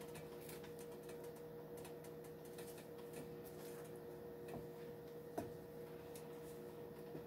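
Wooden spoon stirring thick white sauce in a nonstick skillet: faint, irregular light ticks and taps of the spoon against the pan, a few a little louder, over a faint steady hum.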